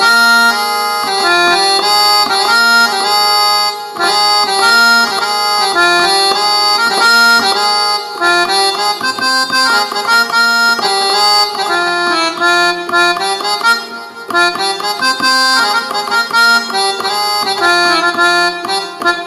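Roland XPS-30 synthesizer playing a harmonium patch built from layered General MIDI accordion sounds: a melody of changing notes over held lower notes, fading out at the very end.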